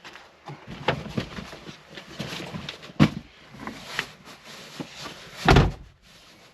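Knocking and handling noises from seat covers being fitted to Jeep Wrangler seats: a run of small knocks and clatters, a sharp knock about three seconds in, and a heavy, deep thump near the end.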